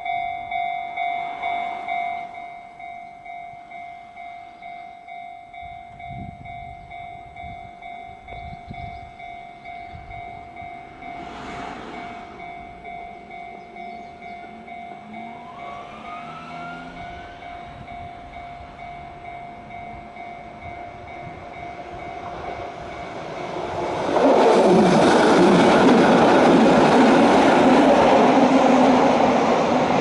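Japanese level-crossing warning bell dinging rapidly and steadily, dropping in volume about two seconds in. From about 24 seconds a Keihan 600-series train passes over the crossing with a loud rumble of wheels on rail that fades near the end.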